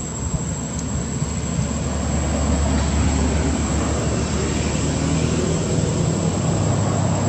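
Low engine rumble with a steady hum, slowly growing louder, with a constant thin high-pitched whine over it.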